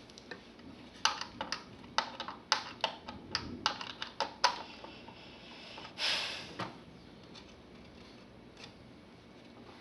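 Quick run of sharp clicks and light clatter as a radio's plastic and metal parts are worked loose and handled during dismantling for scrap, then a short scrape about six seconds in and quieter handling after.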